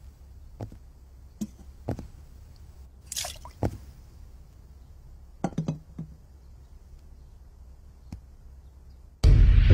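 A man slurping and sipping liquid from a steel bowl, with scattered soft clicks and clinks. Loud background music cuts in suddenly near the end.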